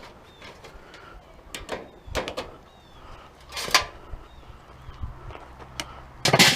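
Scattered clicks and knocks of metal parts and tools being handled while an old electric coil-burner stove is stripped for scrap, with a louder clatter near the end.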